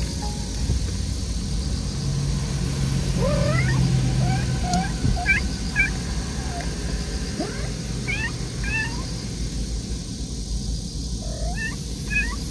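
Nursing mother cat calling her kitten with a run of short meows that bend up and down in pitch, coming in small clusters from about three seconds in.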